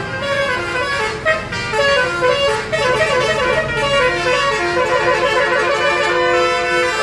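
Bus telolet horn, the multi-tone musical horn fitted to Indonesian buses, playing a quick melody of short stepped notes, ending on a longer held note.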